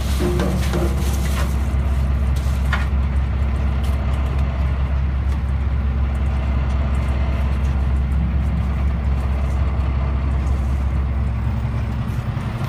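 A boat's engine running at a steady speed, a constant low drone.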